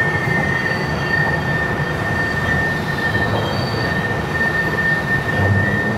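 Green Line light-rail train riding along, heard from inside the passenger car: a steady rumble with a steady high-pitched squeal of the wheels on the rails.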